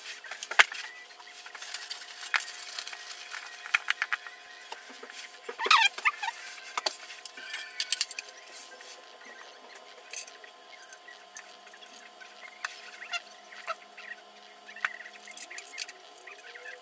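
Metal clinks, knocks and scrapes as the frame and fittings of a KBG sit-ski are handled and fitted together, busiest around six to eight seconds in, where there is also a short squeak. A faint steady hum runs underneath.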